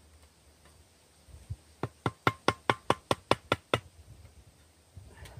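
Knife being batoned through the lid of a tin can: a couple of dull thuds, then a quick run of about ten sharp knocks, roughly five a second, as the baton strikes the knife's spine.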